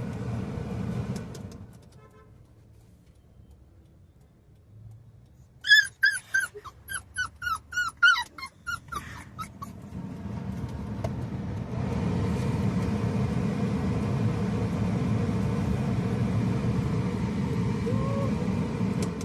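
A puppy whimpers in a quick run of about a dozen high, falling yelps. Around it a steady car hum from the running engine and air conditioner stops about two seconds in and comes back a little past halfway.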